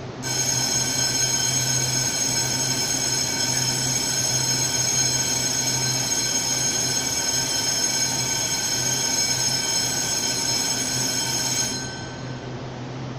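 A steady, high-pitched buzzer tone that comes on suddenly and cuts off after about eleven seconds, typical of a platform or train door-warning buzzer sounded before departure.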